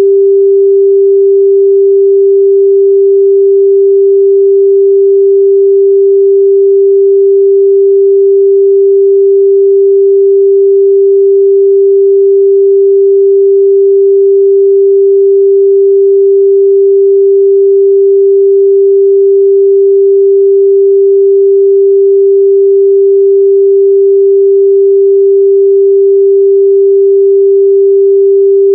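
A steady, loud 394 Hz sine-wave test tone: one pure, unchanging pitch in the midrange.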